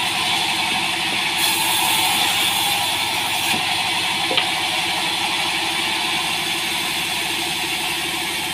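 Sawmill band saw running steadily with a continuous mechanical drone, and a short tick about four seconds in.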